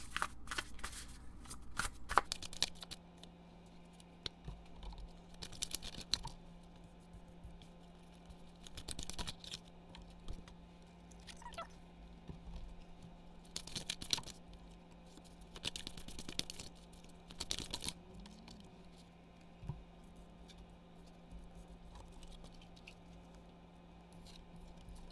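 Tarot cards being shuffled and dealt out by hand: several short bursts of quick papery rustling and flicking, with a faint steady hum underneath.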